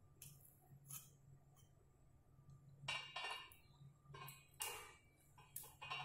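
Near silence with a steady low hum and a handful of faint metallic clicks and scrapes from soldering wires onto the terminals of a small 12 V DC motor.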